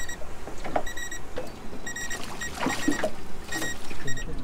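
Short high electronic beeps repeating in quick clusters of two or three, over a low wash of water against a small boat, with a few light knocks.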